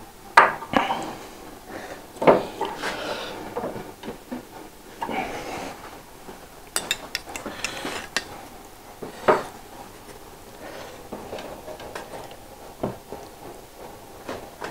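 Irregular knocks, clicks and clinks of wood and metal being handled as a solid oak tabletop is shifted into place on its frame, measured and clamped. The loudest knocks come about half a second in, just after two seconds, and about nine seconds in.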